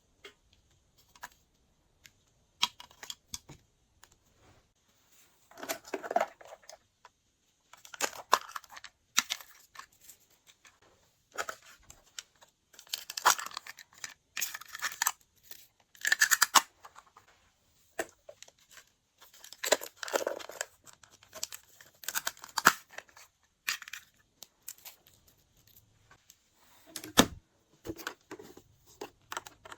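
Glossy slime being mixed, folded and pressed, giving irregular runs of sticky crackles and pops every couple of seconds.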